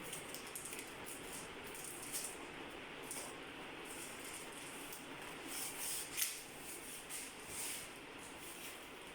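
Hands handling and unpacking small parts: faint, irregular rustling and scraping, with one sharp click about six seconds in.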